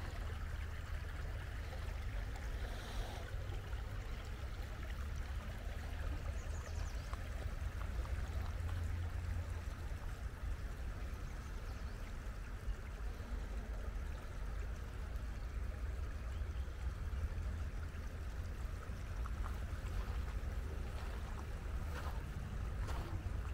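Shallow river running over a stony riffle: a steady rushing of water, with a steady low rumble underneath.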